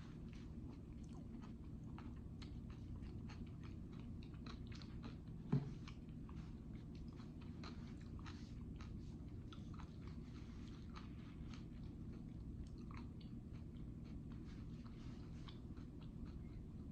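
Close-up chewing of jalapeño poppers, a steady run of small irregular clicks and soft crunches. There is one short low thump about five and a half seconds in.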